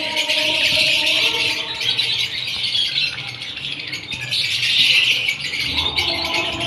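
Fischer's lovebirds chattering: a dense, continuous mass of rapid high chirps from several birds at once.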